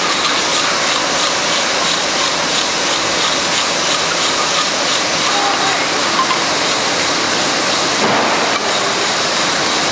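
Steady hissing machine noise of a jam-jar filling and capping line running, with faint regular ticking in the first few seconds.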